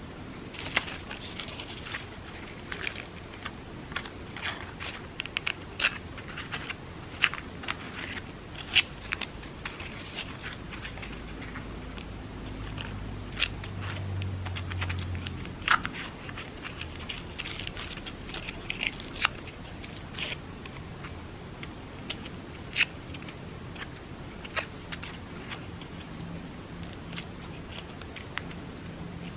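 Crepe paper being handled and torn by hand: many small, sharp crackles and rips scattered irregularly. A low hum rises briefly in the middle.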